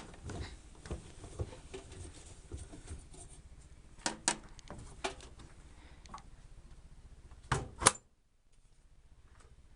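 Electrolux EWS 1045 washing machine being handled: scattered clicks and knocks, then a loud double clack just before eight seconds in, after which the background goes quieter.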